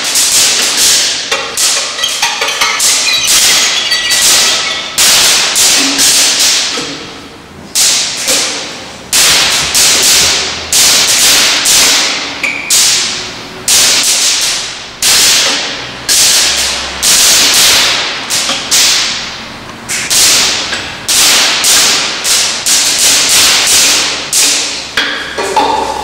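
Violin played percussively with hard, scratchy bow strikes: a long irregular run of sharp whip-like cracks, about one a second with some quicker, each dying away briefly, with hardly any sustained pitch.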